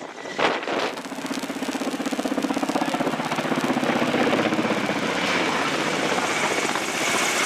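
Helicopter overhead: a steady, rapid pulsing of rotor and engine that swells over the first few seconds, after a few sharp knocks at the start.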